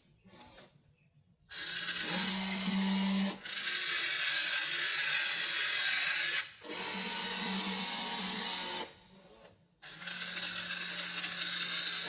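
Electric motors and gears of a Wltoys RC toy excavator whining as it works. The whine starts after a quiet second or so, runs in stretches with brief stops, and drops out for about a second near the end before starting again.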